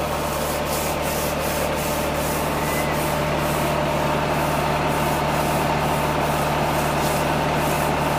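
A charpai's woven surface being scrubbed by hand with a brush in quick, repeated strokes, about three a second. Under it, water gushes from a tubewell pipe into a tank, and the belt-driven pump hums steadily.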